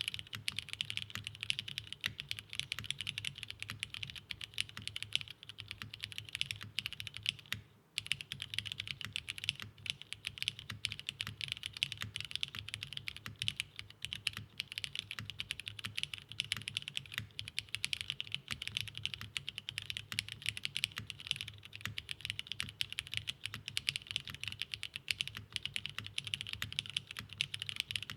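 Continuous fast typing on a MatrixLab 8XV3 custom mechanical keyboard with lubed Cherry MX Black linear switches, an aluminium half plate and GMK keycaps: a dense stream of key strokes with a short break about eight seconds in.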